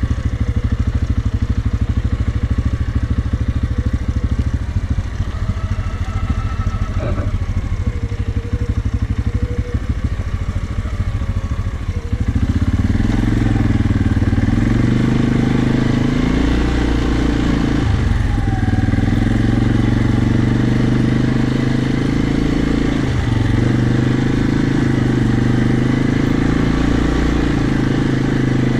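Quad (ATV) engine running in low gear while descending a steep hill with the brakes on. About twelve seconds in, it gets louder and takes on a stronger, steadier hum.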